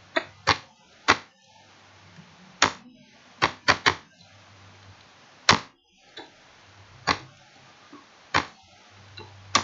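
Computer keyboard keys pressed one at a time: about a dozen sharp clicks at uneven spacing, with a quick run of three about three and a half seconds in.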